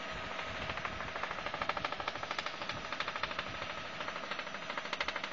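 Helicopter in flight, heard from inside the cabin: the rotor blades beat in a rapid, even chop, with a steady whine underneath.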